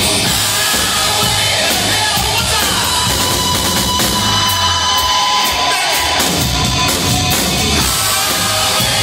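A rock band playing loudly live: electric guitar over drums.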